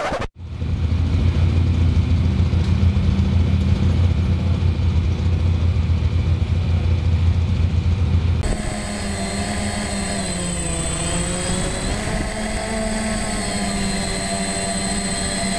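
An engine running with a steady drone. About eight seconds in the sound changes character, and its pitch dips and rises again a couple of seconds later.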